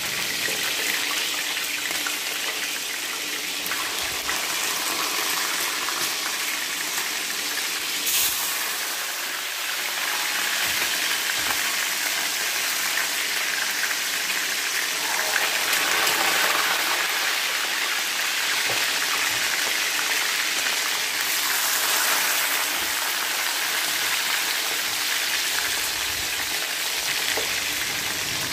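Chicken wings sizzling as they fry in hot oil in a frying pan: a steady, even hiss, with one brief louder crackle about eight seconds in.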